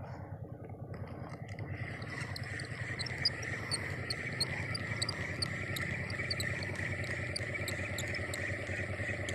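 Insects chirping in a steady chorus: a continuous high buzz with short, evenly repeated chirps a few times a second.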